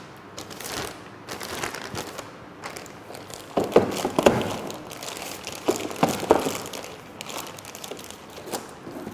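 Handling noise as the air stapler and its loose parts are packed away: irregular clicks and knocks of hard plastic and metal, with crinkling rustle. The loudest knocks come in two clusters, a few seconds in and again about two seconds later.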